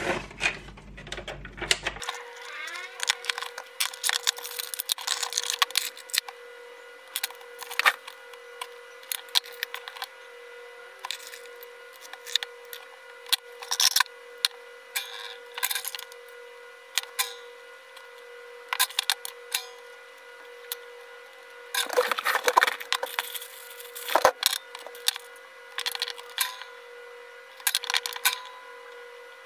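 Irregular small clicks, taps and clatter of wires, connectors and hand tools being handled on a wooden workbench, with a busier burst of clatter a little past the two-thirds mark, over a faint steady tone.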